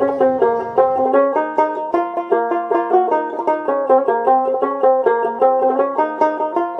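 Instrumental background music: a plucked string instrument picking quick, rapid notes.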